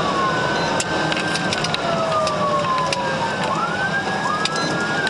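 Police sirens wailing, two out of step with each other, each rising to a high pitch, holding and then sliding slowly down, over steady road noise from a patrol car in a high-speed pursuit.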